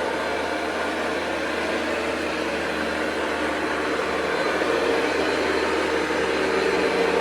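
Hoover Convertible U4345 upright vacuum cleaner running steadily, a motor whir with a steady whine over a rushing of air; it grows slightly louder about halfway through.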